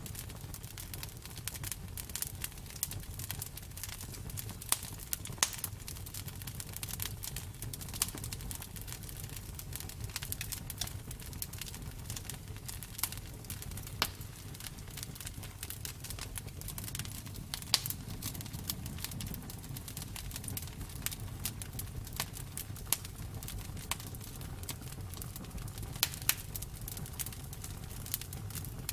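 Wood fire burning, with a steady low rumble and irregular crackles and sharp pops, a few of them much louder than the rest.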